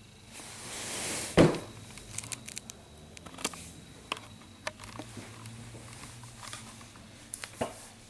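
Rustling as the camera is handled, then one sharp knock about a second and a half in. After it come scattered light clicks and taps, the sound of a small puppy's claws on a tile floor.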